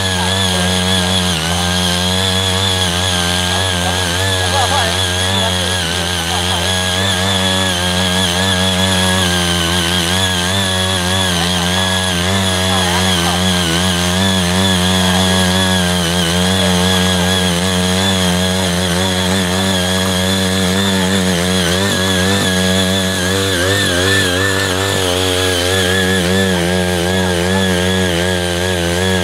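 Small petrol engine of a CY80 walk-behind power tiller running steadily under load as its rotary tines dig through dry soil clods. The engine note wavers up and down continuously as the tines bite.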